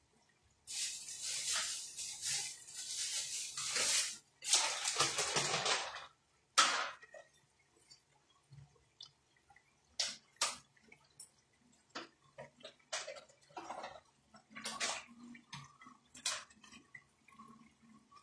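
Water running in two spells of a few seconds each, then scattered light clinks and taps of utensils.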